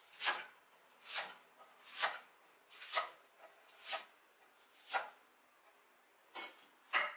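Global chef's knife slicing through a bundle of garlic chives onto an end-grain wooden cutting board: a crisp cut about once a second, eight cuts in all, the last two closer together.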